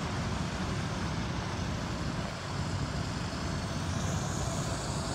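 A steady low rumble with a faint hiss over it, unbroken by any radio transmission.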